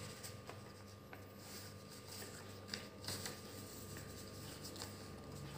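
Faint rustling and creasing of a square sheet of craft paper being folded by hand on a table, with a few soft clicks as the paper is handled.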